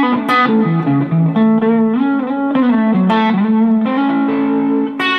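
Telecaster-style electric guitar in open D tuning playing a continuous phrase of picked notes and chord fragments, the notes changing quickly with a few held longer.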